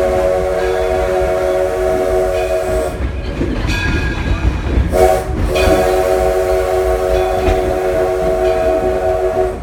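Steam locomotive's chime whistle, several steady notes sounding together: a long blast that ends about three seconds in, then a short blast and another long blast. Under it the steady rumble and rail clatter of the moving train.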